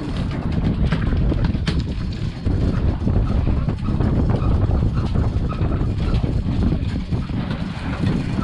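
Continuous low rumble of wind buffeting the microphone over the boat's running engine, with a sharp click about one and a half seconds in.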